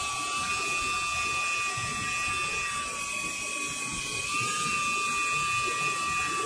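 Dremel rotary tool with a small buffing wheel running at steady speed, a high whine, while buffing a soldering iron's barrel under very light pressure. Its pitch steps up slightly a little over four seconds in.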